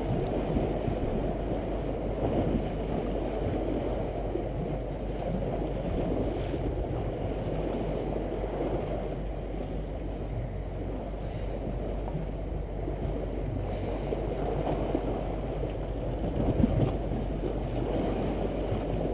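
Steady low wind rumble on the camera microphone, with sea water washing against the pebble shore.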